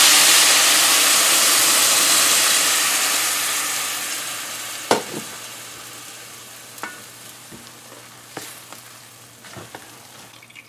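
Water hitting a hot pot of dry-fried soya chunks, sizzling loudly at first and dying away steadily over several seconds. From about halfway through, a few sharp knocks of a spatula against the pot as the chunks are stirred.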